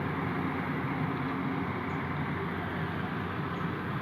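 Yanmar YH850 combine harvester's diesel engine and machinery running steadily.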